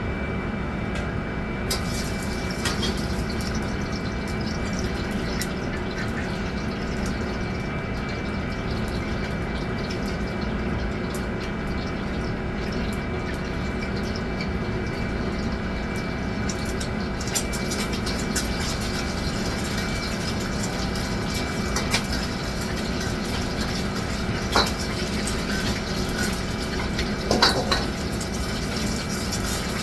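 Steady rush of running water with a faint hum underneath, and a few light knocks in the second half.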